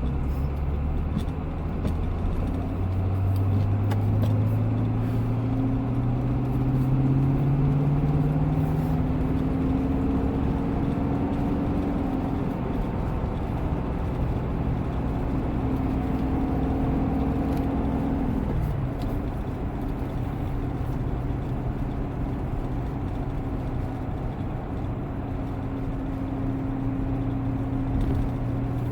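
C7 Corvette's V8 engine running on the road. Its pitch climbs steadily for the first several seconds and then holds. About two-thirds of the way through it drops suddenly, then runs on steady.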